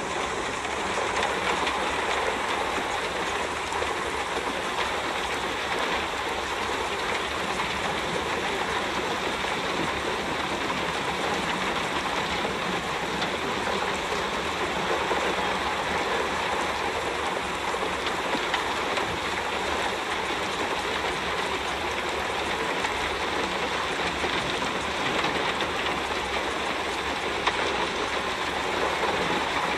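A steady, even rushing noise with no tune or beat: the masking sound bed of a subliminal track, over which spoken affirmations are laid too quietly to be heard.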